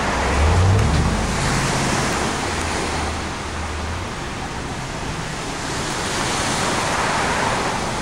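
Small waves washing up onto a sandy beach and draining back: a steady rushing hiss of surf that swells again near the end. A low hum sits under it for about the first half.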